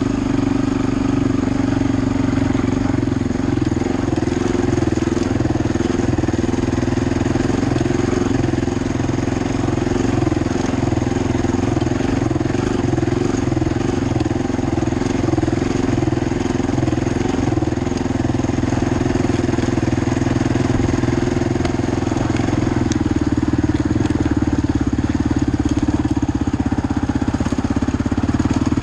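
Quad (ATV) engine running steadily while riding along a dirt trail. Its note stays even, with the deepest part of the sound falling away about four-fifths of the way through.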